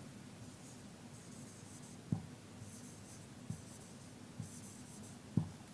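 Marker pen writing on a whiteboard: faint scratchy strokes in short runs, with a few soft taps of the pen against the board.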